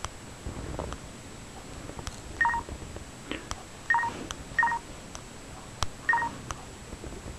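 LG KP500 Cookie touchscreen giving four short electronic beeps, the first about two and a half seconds in, as touch feedback while a stylus works on the screen. Light clicks and scratches of the stylus tip on the screen come between them.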